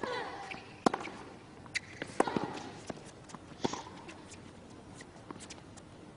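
Tennis rally: sharp racket strikes on the ball and ball bounces every second or so, with a short grunt from a player on several of the hits.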